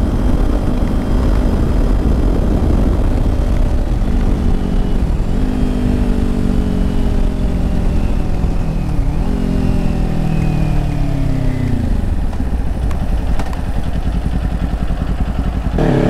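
Kawasaki Ninja 400 motorcycle engine under heavy wind rush on the microphone: the engine note falls steadily as the bike slows, with a short dip and pickup about halfway through, then climbs sharply right at the end as the bike accelerates again.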